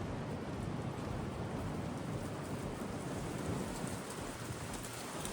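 Wind gusting across the microphone, a steady low rumble that swells and eases.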